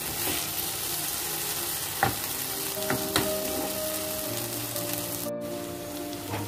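Okra coated in yogurt-and-spice masala sizzling steadily in hot oil in a kadhai, cooking uncovered over medium-low heat until the okra turns tender. A few sharp taps of a wooden spatula against the pan come about two and three seconds in.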